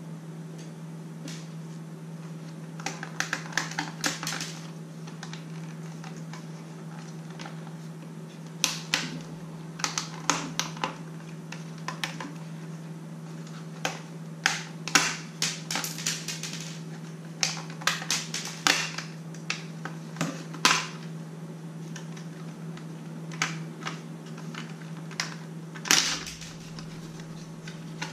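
Irregular clicks, taps and clatters of a Yuneec Typhoon H hexacopter's hard plastic shell and small tools as the drone is handled and taken apart. They come in clusters with pauses, over a steady low hum.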